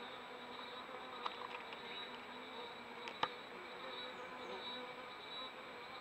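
Insects buzzing steadily in a low ambient background, with a few faint ticks about a second in and one sharp click a little past three seconds in.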